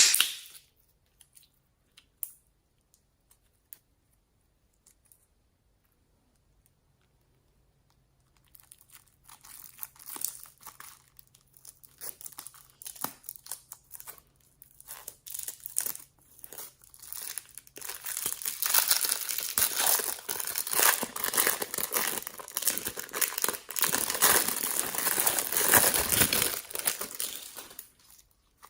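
Hands working slime and the things mixed into it, making crinkling, crackling handling noises. There is a sharp click at the very start, then only sparse ticks; about a third of the way in the crackling starts, growing dense and continuous in the second half before stopping just before the end.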